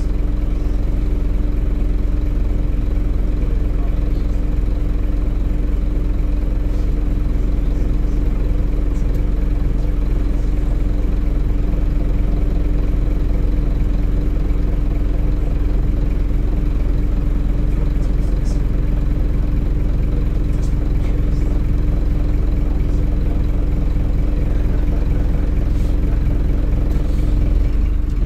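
Diesel engine of a Scania Visionaire double-decker bus idling while the bus stands still, a steady low rumble with an even hum, heard from inside the upper deck.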